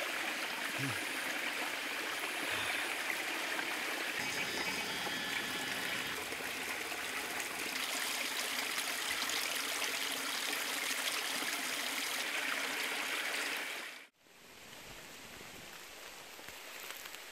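Small spring-fed mountain stream trickling and babbling over rocks, a steady rushing water sound. It cuts off suddenly about fourteen seconds in, leaving only a faint outdoor background.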